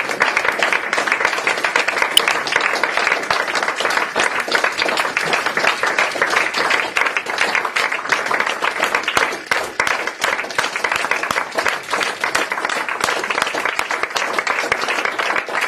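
Audience applauding steadily, many hands clapping throughout.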